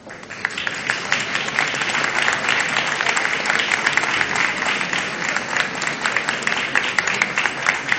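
Audience applauding, many hands clapping at once; the applause starts suddenly and eases off near the end.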